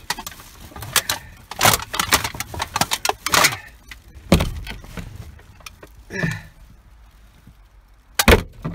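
Clicks, knocks and rattles of a truck's door window and door hardware being worked open by hand from inside the cab, with a loud knock near the end.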